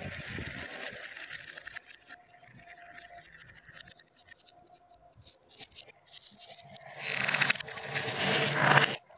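Glass marbles clicking against each other and the plastic track, in scattered single clicks for a few seconds. About seven seconds in, a loud, dense clatter lasting about two seconds as a hand rakes through a heap of glass marbles.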